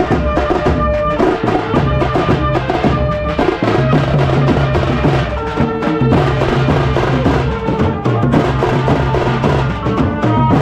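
Loud, fast, dense drumming with rapid strikes throughout, over long held low bass notes.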